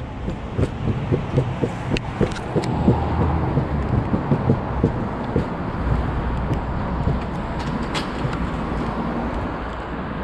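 Electric skateboard rolling along a concrete sidewalk, its wheels clacking over the pavement joints at about three to four a second for the first half, over a steady low rumble of rolling and passing traffic.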